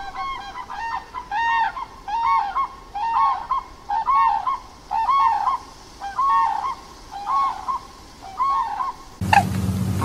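An animal calling over and over, each call a short honk that rises and falls in pitch, about one a second. Just before the end the sound cuts abruptly to a low hum with quicker calls.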